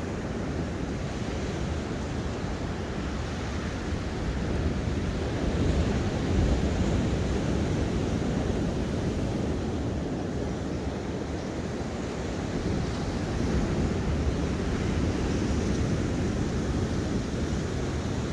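Ocean waves washing onto the shore in a steady low rush, with wind on the microphone; the surge swells a little about six seconds in and again in the later part.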